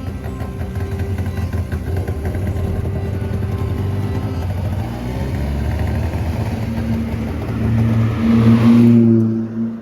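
Car engine running and revving up, growing louder near the end, then cutting off suddenly.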